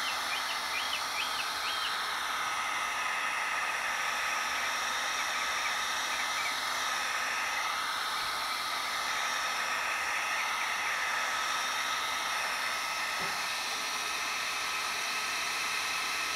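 Heat gun blowing hot air steadily, an even hiss with a faint steady whine, as it is moved over the face of a colour CRT to soften the bonded safety-panel layer (the cataract) for removal.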